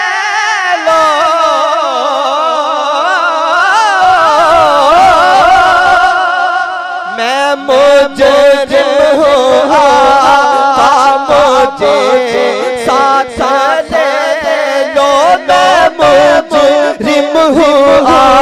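Male naat reciter singing a long, ornamented line into a microphone, his voice wavering up and down in pitch. About seven seconds in, a steady low backing hum and a quick rhythmic pulse come in beneath the voice.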